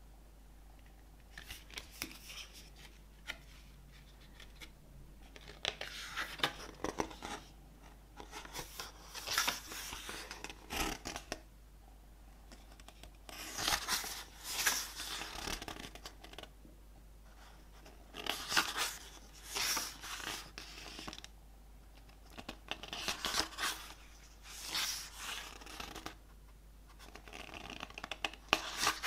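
Cardboard and paper album packaging being handled and opened: irregular bursts of rustling and scraping, each about a second long, separated by short pauses.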